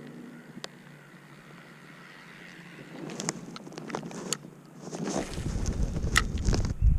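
Wind buffeting the microphone in a deep rumble that starts about five seconds in, after a few seconds of scattered clicks and knocks.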